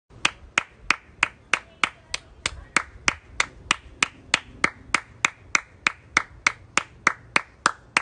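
One person clapping hands in a steady, even rhythm, about three claps a second.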